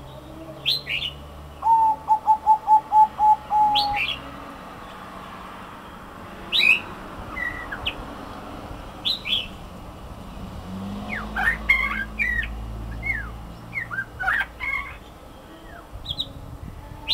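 Zebra dove (merbuk) cooing a quick run of about nine short, evenly spaced staccato notes about two seconds in. Brief, higher-pitched chirps from other birds come and go through the rest.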